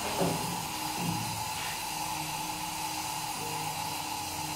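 Steady hiss and fizz of a lump of sodium metal reacting violently in a glass of coconut water, under background music with held notes.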